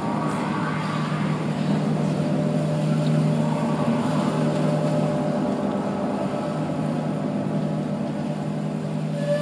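Symphony orchestra with a large string section playing a dense, sustained low wash of sound, swelling slightly over the first few seconds.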